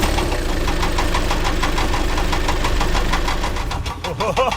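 Vehicle engine running steadily with a fast, even knocking pulse. Near the end, high gliding chirpy sounds begin.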